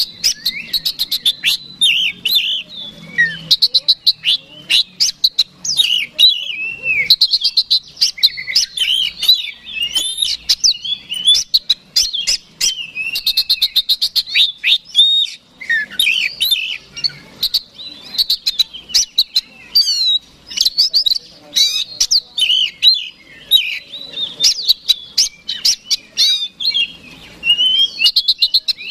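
Male oriental magpie-robin (kacer) singing loudly and almost without a break: a varied song of sweeping whistles mixed with fast rattling runs of rapidly repeated notes, with a couple of brief pauses.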